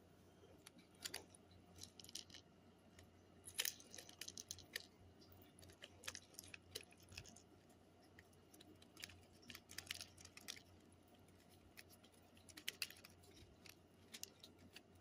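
Near silence, broken by scattered faint clicks and light taps from small kitchen items being handled, the sharpest about three and a half seconds in and again near the end.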